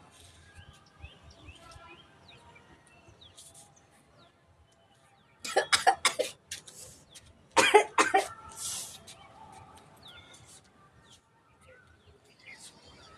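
A person coughing and sneezing in two short fits of sharp, explosive bursts about two seconds apart. The reflex is set off by coconut fibre tickling the inside of the nose. Birds chirp faintly in the background.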